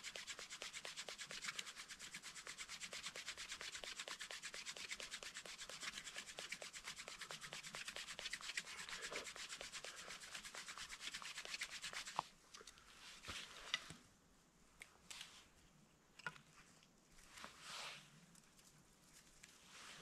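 Friction fire-lighting: a hand drill made from a grass tree flower stalk, spun back and forth between the palms, rubbing against a wooden hearth board in a fast, even rhythm of strokes. The drilling stops about twelve seconds in, leaving only a few faint scrapes and rustles.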